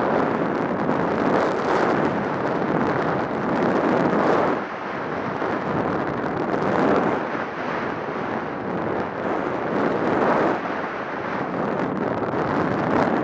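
Wind rushing over the microphone of a body-worn action camera while skis hiss and scrape over chopped-up snow during a ski run, the noise swelling and easing every two to three seconds with the turns.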